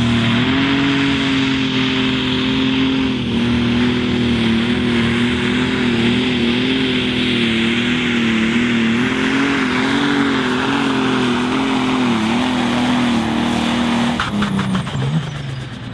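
Ford 8340 Pro Stock pulling tractor's turbocharged diesel engine running flat out under load down the track, its note wavering up and down as engine speed dips and recovers. About 14 seconds in the engine note stops abruptly and the sound falls away as the run ends.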